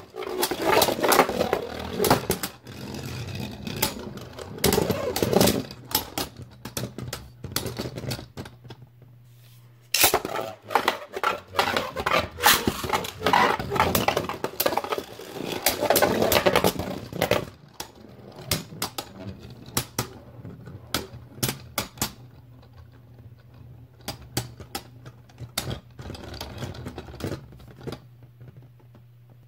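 Two Beyblade Burst spinning tops, one a Zone Lúinor L5, battling in a plastic stadium: rapid sharp clacks and rattling as they collide and grind against each other and the floor. The hits thin out to scattered clicks over the last ten seconds as the tops slow and wobble to a stop.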